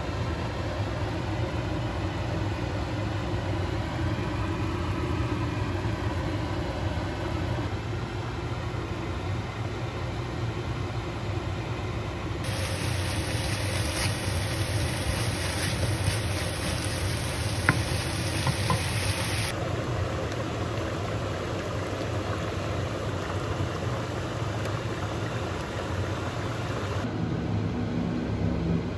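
A steady low motor hum with kimchi and tuna cooking in a nonstick frying pan, stirred now and then with a wooden spatula, with a faint tick or two from the spatula on the pan.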